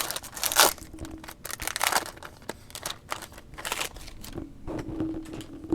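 Foil wrapper of a trading card pack crinkling in irregular bursts as it is torn open and handled, with cards being pulled out.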